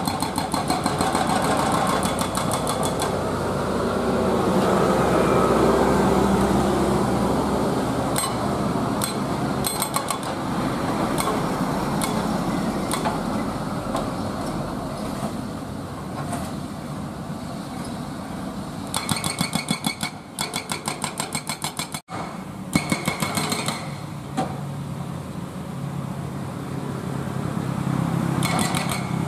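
Hydraulic breaker on a Kobelco SK200 excavator hammering into the road surface in runs of rapid, even blows that stop and start, over the excavator's engine. A motorcycle engine swells up and fades in the first several seconds.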